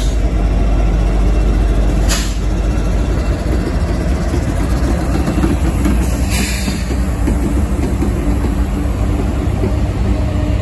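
Norfolk Southern diesel-electric freight locomotives passing slowly close by, running with a loud, steady low rumble and hum. Two brief hisses come about two and six seconds in.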